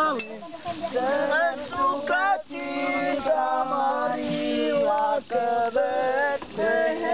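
Voices singing a song, in phrases with brief breaks between them.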